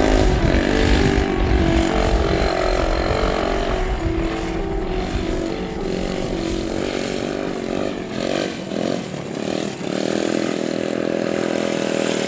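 Dirt bike engine heard at a distance, its pitch rising and falling with the throttle, with wind rumbling on the microphone for the first several seconds.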